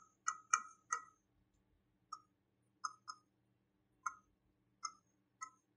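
Pen tip tapping on the glass of an interactive touchscreen board during writing: about ten small, sharp clicks, quick together in the first second, then sparser.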